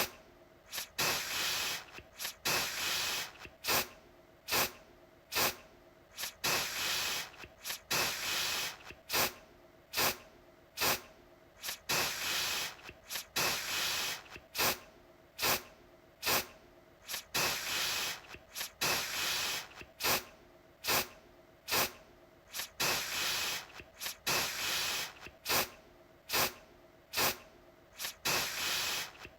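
Aerosol deodorant can spraying in short hissing bursts, one after another at about one a second, some bursts briefer and some held a little longer, each starting sharply.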